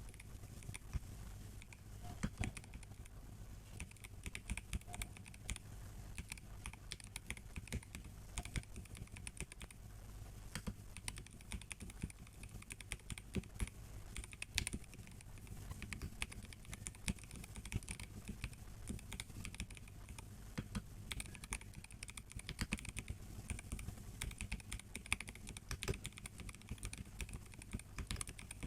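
Typing on a MelGeek Mojo84 mechanical keyboard with a plastic case and brown tactile switches: a steady, irregular stream of key clicks and clacks.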